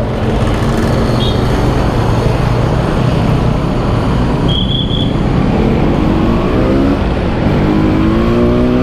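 Yamaha RX-King's two-stroke single-cylinder engine running while riding, with road and wind rush: steady at first, then the revs climb from about halfway in, drop at a gear change, and climb again near the end.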